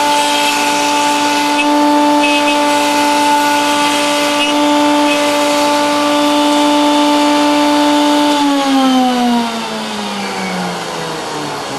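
Table-mounted router running at steady full speed with a high whine. About eight and a half seconds in it is switched off, and the whine falls steadily in pitch as the bit spins down.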